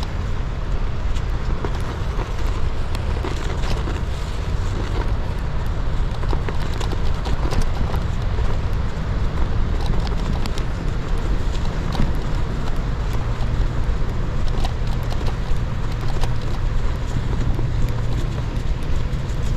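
Rose Backroad AL gravel bike rolling slowly over a snowy, icy path: the tyres crunch with many small irregular clicks over a steady low rumble of wind and rolling noise.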